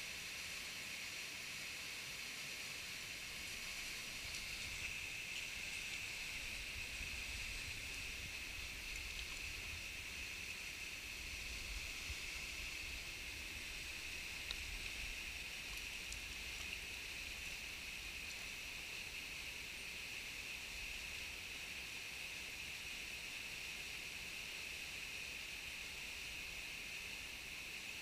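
Steady rushing of a small mountain waterfall and stream, an even hiss of moving water with some low rumbling through the middle.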